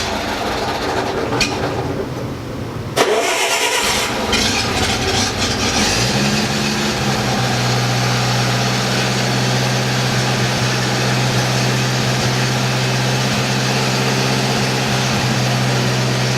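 Bobcat 610 skid steer's four-cylinder Wisconsin gas engine running unevenly, with a sharp knock about three seconds in, then settling into a steady run from about six seconds on.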